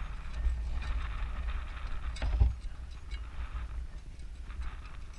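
A Honda dirt bike and its metal stand being handled by hand, giving a sharp knock about two and a half seconds in, over a low, uneven rumble.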